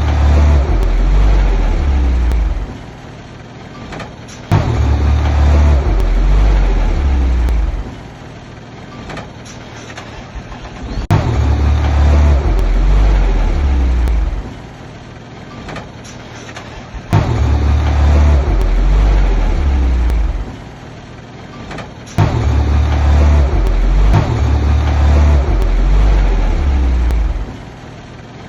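Heavy construction machine's diesel engine working under load in repeated cycles: it swells loud and deep for about three seconds, then drops back for about two, about every six seconds.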